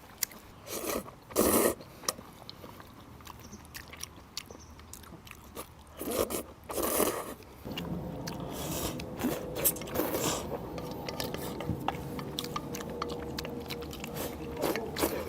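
A person eating a bowl of mixed noodles: chewing, with several loud slurps and small clicks of chopsticks against the bowl. A faint steady hum starts about halfway through.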